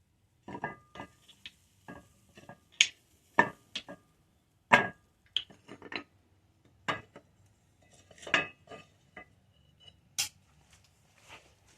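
Pieces of brass clinking and knocking against each other as they are handled, about twenty irregular strikes, some with a short metallic ring.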